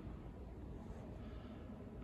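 Quiet, steady low rumble and hiss of room tone in a large stone cathedral interior, with no distinct events.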